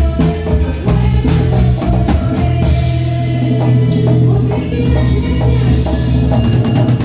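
A live band playing amplified rock-style music: drum kit, congas and electric guitars over a heavy, steady low end.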